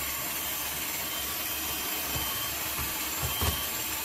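Krups 3 Mix electric hand mixer running steadily, its beaters whipping thickened cream in a plastic tub, with a few low thumps a little past three seconds in. The cream is at the stiff whipped stage and has not yet broken into butter.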